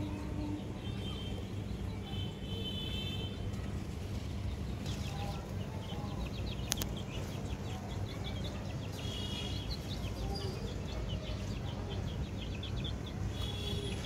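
Backyard chickens with small birds chirping: short high trills and chirps come again and again, and softer low clucks sit under them. A steady low rumble runs beneath, and there is one sharp click a little before the middle.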